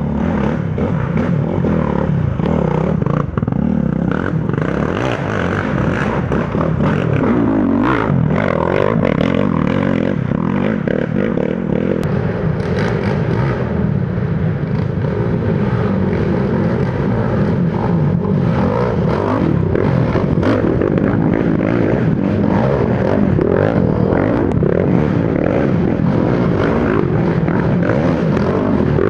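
Racing ATV engines revving up and down as quads pass one after another, with scattered clattering knocks.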